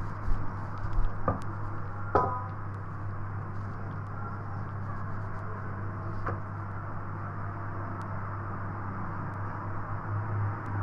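Rolling pin working a sheet of starch-dusted dough, with a few light knocks in the first couple of seconds and one more later, over a steady low hum.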